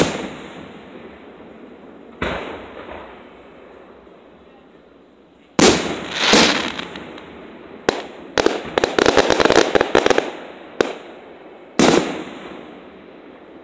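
Aerial firework shells bursting overhead: a sharp boom every few seconds, each fading slowly. From about eight seconds in, a rapid run of crackling pops lasts about two seconds before two more booms.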